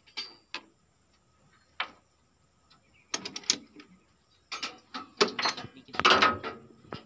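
Hand tools and metal parts clanking and clicking in a heavy truck's engine bay: irregular knocks with short metallic ringing, a few at first, then a denser cluster about three seconds in and again over the last couple of seconds.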